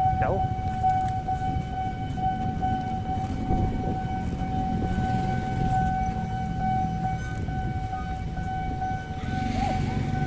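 Railway level-crossing warning alarm sounding one unbroken high tone as a train approaches, over the low rumble of nearby traffic.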